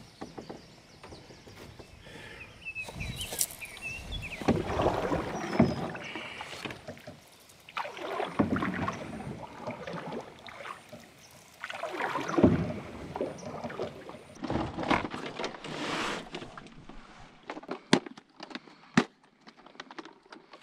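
Canoe paddle strokes pulling through the water, a swishing rush about every three to four seconds. Near the end come two sharp clicks from a plastic tackle box being unlatched.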